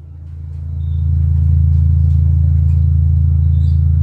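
Stacked subwoofer cabinets with ACR woofers playing a steady deep bass drone that fades in over about a second and a half, then holds at a high level without changing pitch.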